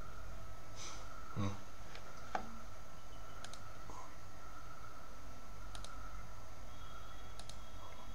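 Several separate clicks from a computer mouse and keyboard, spaced a second or two apart, over a steady faint electrical hum.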